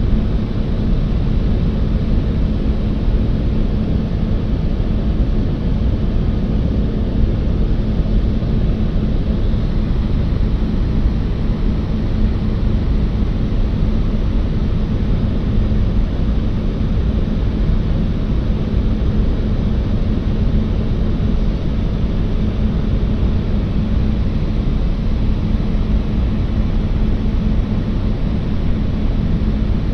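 Steady drone of a propeller airplane's engines: a low hum under an even rush of noise, unchanging throughout.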